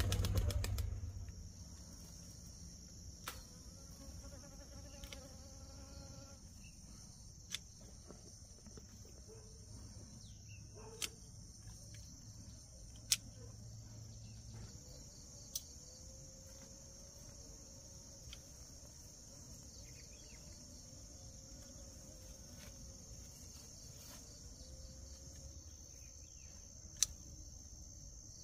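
Steady high-pitched insect trilling, with a few sharp clicks or taps scattered through it and a low hum that stops about halfway.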